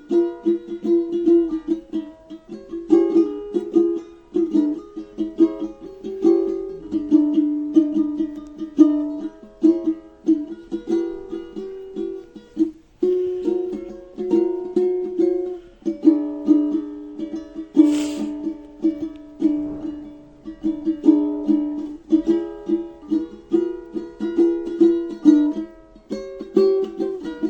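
Background music: a light, bouncy plucked-string tune of quick, repeated short notes, with a brief hiss about two-thirds of the way through.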